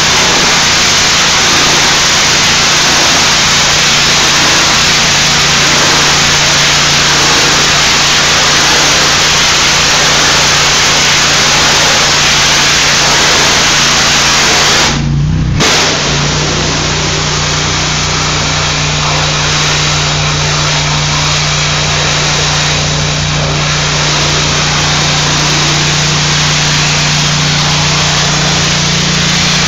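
Pressure washer running: a steady engine drone under a loud, even hiss of spraying water. About halfway through the sound drops out for a moment and comes back the same.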